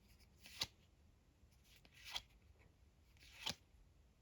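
Trading cards flicked and slid past one another, three short soft snaps about a second and a half apart, as a freshly opened pack is leafed through card by card.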